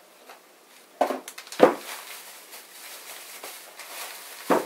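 A plastic bag crinkling around a heavy metal bench hand plane as it is handled, with a few knocks on a plywood bench. The loudest knocks come about a second and a half in and near the end.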